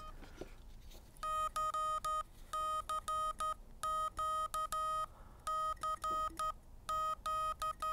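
Morse code practice oscillator (the MATT kit) sounding a buzzy, mid-pitched beep through its small speaker, keyed on and off with its straight key in short and long elements. The beeps start about a second in and come in five groups with brief gaps between them. The key is worked with a thumb.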